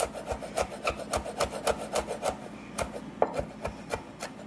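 Kitchen knife chopping a Thai chili finely on a wooden cutting board: quick, even knocks of the blade on the board at about four a second, slowing to a few scattered taps about halfway through.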